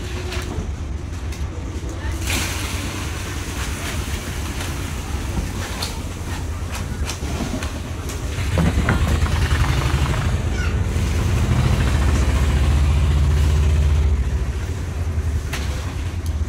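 A boat's engine running with a steady low rumble, growing louder for several seconds in the middle, with scattered knocks as plastic baskets and a jerrycan are set down on the wooden planks.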